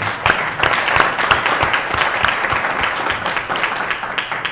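Audience applauding: a dense patter of many hand claps that dies away at the end.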